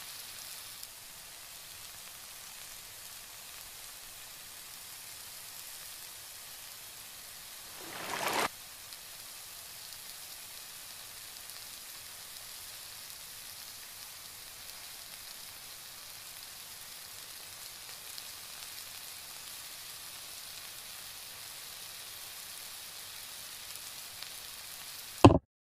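Tomatoes, green mango and sweet potato sizzling gently in a steel wok, a steady soft hiss. About eight seconds in there is a brief louder swell that stops abruptly, and a sharp knock near the end.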